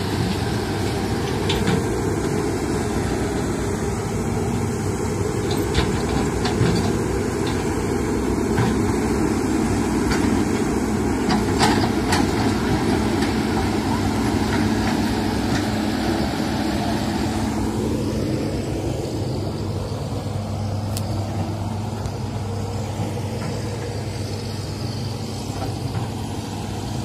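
Hitachi crawler excavator's diesel engine running steadily under load, with a few sharp metallic clanks in the first half. About two-thirds of the way through, the engine note eases and drops.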